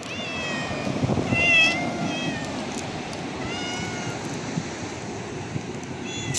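A cat meowing repeatedly: about five short meows, the loudest around a second and a half in, with a brief one near the end, over steady low background noise.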